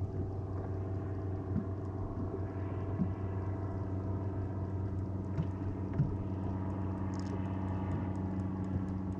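Steady low hum of a boat motor, with a few light knocks against the hull.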